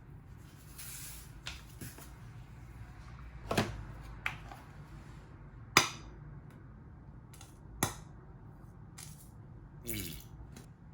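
Dishes and kitchen utensils knocking and clinking, about five sharp clinks spread out, the loudest about six seconds in, with a short scrape near the end, over a steady low hum.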